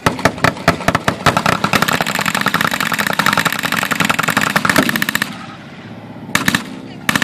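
Vehicle-mounted German WWII machine gun firing blanks at close range: a few single shots, then a long rapid burst that stops about five seconds in, followed by a short burst and the start of another near the end. The assault gun's engine runs underneath.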